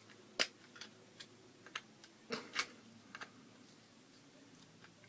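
Light, irregular clicks and taps from small hard objects being handled by hand: about eight in the first three and a half seconds, then they stop.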